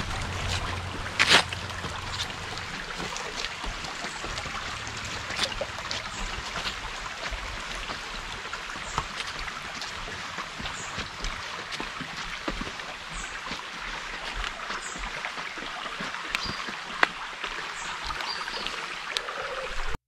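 Shallow stream running over stones, a steady babbling rush of water, with scattered sharp clicks and taps throughout, the loudest about a second in.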